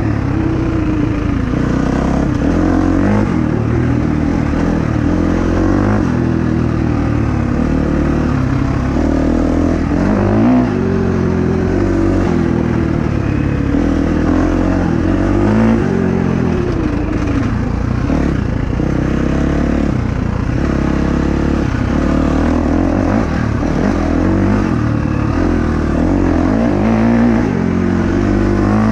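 KTM 350 XC-F dirt bike's single-cylinder four-stroke engine, ridden on a trail. The engine pitch climbs and falls again and again as the rider rolls the throttle on and off.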